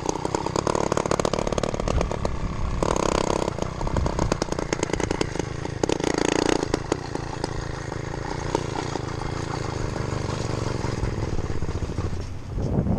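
Small two-stroke motorized-bicycle engine running at riding speed, with a fast, buzzy firing rhythm. It revs up briefly about three seconds in and again about six seconds in.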